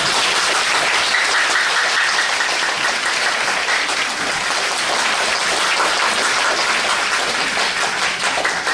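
Audience applauding: dense, steady clapping from a concert-hall crowd.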